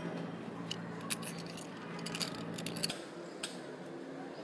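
Light metallic clicks and clinks from a steel keyring perpetual calendar being handled, its dial turned and its split ring knocking. A low steady hum underneath stops about three seconds in.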